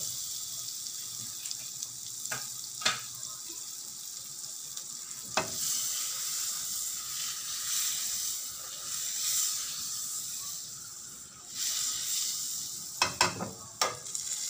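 Butter melting and sizzling in a stainless steel pan, with a spatula stirring it and knocking against the pan a few times; a quick cluster of knocks comes near the end.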